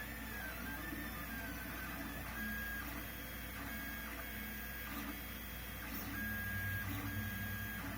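Lulzbot TAZ 6 3D printer running, its stepper motors whining in short tones that start, stop and glide in pitch as the axes move, over a steady low hum.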